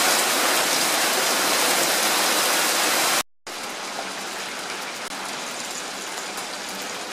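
Heavy rain pelting pavement and grass, a loud, dense hiss. It cuts off abruptly a little over three seconds in. After a brief gap, a quieter, steady hiss of rain on the flooded street follows, with faint scattered patters.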